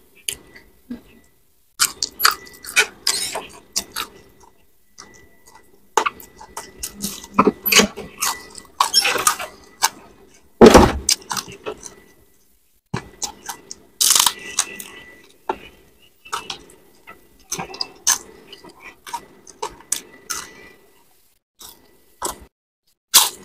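Close-up chewing and crunching of crisp fried fish and crackers, with irregular wet mouth clicks and smacks. A single heavier thump comes about eleven seconds in, and a faint steady high tone runs underneath.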